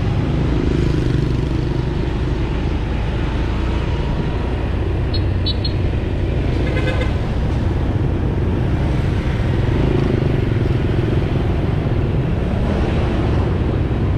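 Motorcycle engine and road noise, steady while riding through street traffic. A few short high beeps come about five seconds in, then a vehicle horn toots briefly.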